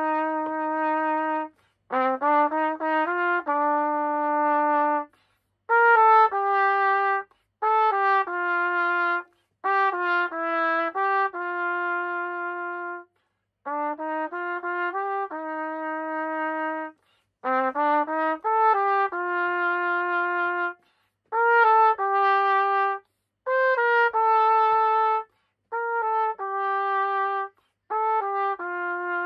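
Solo trumpet playing a melody in short phrases, each moving through a few quick notes to a held note, with brief breath pauses between phrases.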